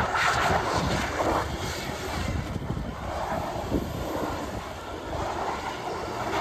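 Volvo XC70 D4 diesel engine running as the car drives, under a low rumble with a rushing noise that swells about three times.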